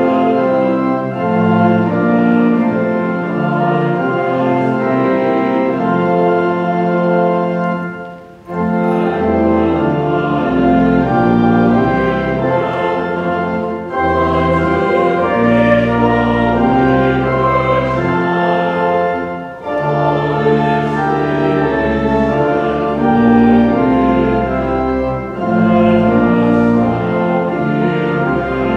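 A hymn sung by a small group of voices to organ accompaniment, in phrases of about five to six seconds with short breaths between them.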